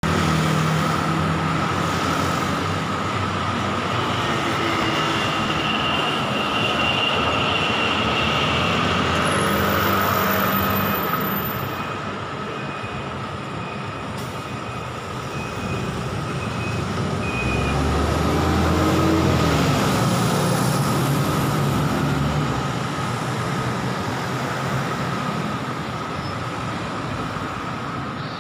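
Street traffic at a city intersection: motor scooters and cars passing, with a city bus going by close. A heavier engine rumble swells a little past halfway, then the traffic noise settles lower.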